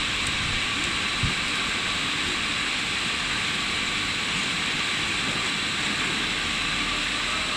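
Steady hiss and hum of a PET sheet extrusion line running, with no distinct strokes or rhythm, and one light knock about a second in.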